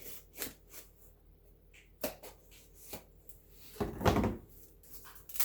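Handling of packaging and boxed items: several short clicks and knocks, then a louder scraping rustle about four seconds in.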